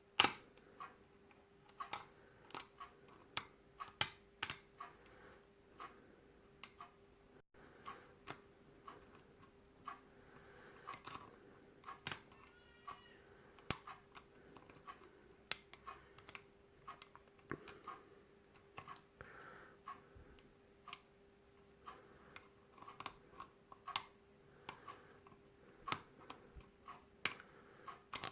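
Lock pick and tension tool working the pin stack of a Yale pin-tumbler night-latch cylinder: light, sharp clicks and ticks at irregular intervals, over a faint steady hum.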